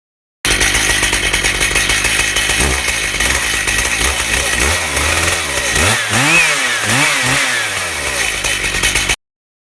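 Chainsaw running at high revs while milling beech, its engine note steady at first, then dipping and rising several times in the second half. It cuts in suddenly and stops suddenly.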